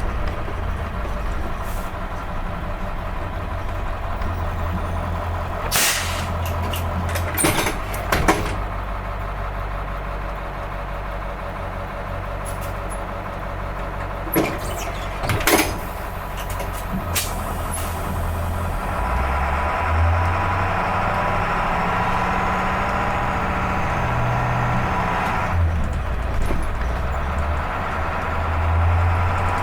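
School bus diesel engine running steadily at idle, with several short, sharp hissing or clicking bursts and a stretch of louder running in the second half.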